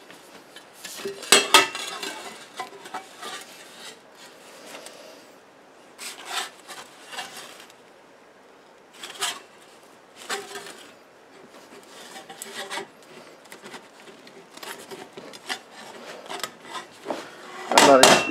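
Sheet metal being bent by gloved hands around a steel pipe clamped in a vise: scattered scrapes, rubs and light metallic clicks as the cone blank is worked over the pipe. Near the end a hammer starts striking the sheet metal on the pipe, about four blows a second and much louder.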